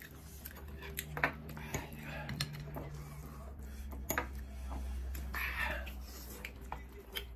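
Metal chopsticks clicking and scraping against a pan and plates while people eat, with brief mouth sounds and a steady low hum underneath.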